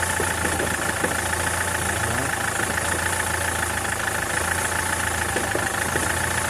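SsangYong Kyron engine idling steadily with a fast, even knock running through it: the knock that the owner puts down to the flywheel.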